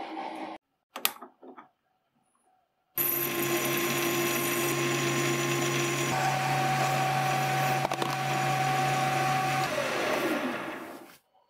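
Metal lathe starts about three seconds in and runs steadily with a whine, its tool cutting across the face of a spinning metal cylinder. Near the end the lathe spins down, the pitch falling until it stops.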